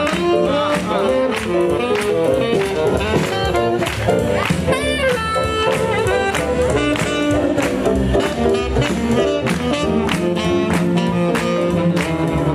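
Live swing jazz band playing: a saxophone line over double bass, keyboard and drums keeping a steady beat.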